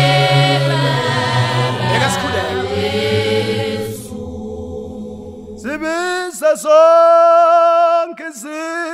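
Zion church choir singing a cappella in full harmony, with low bass voices under the chant. About four seconds in the choir fades away, and near six seconds a single voice takes up the lead line alone.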